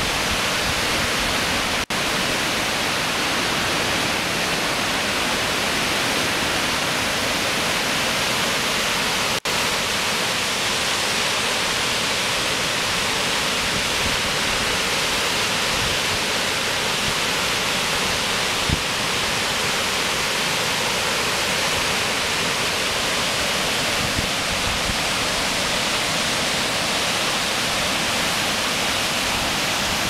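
Shiraito Falls, many thin streams of spring water falling over a wide cliff into a pool, making a steady, even rush of falling water.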